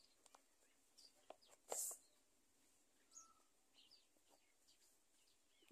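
Near-silent room tone with faint pen strokes scratching on notebook paper, a short hiss a little under two seconds in, and a few faint, short bird chirps.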